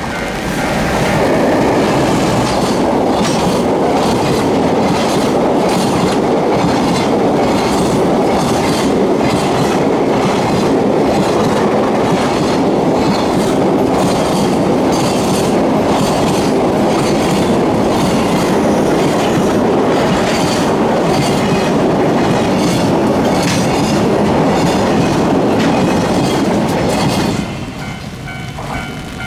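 A freight train hauled by an EF210 electric locomotive passing close by on a short railway bridge: a long run of container wagons, their wheels clacking over the rail joints in a steady rhythm. The noise cuts off suddenly near the end as the last wagon goes by.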